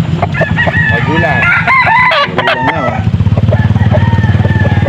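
Several gamecocks crowing and clucking over one another, the crows rising and falling in pitch. Under them a low pulsing drone grows louder about three seconds in.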